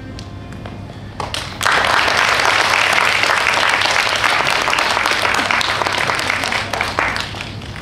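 The end of a song's music fades out, then an audience breaks into applause about a second and a half in, dense and steady for several seconds before thinning out near the end.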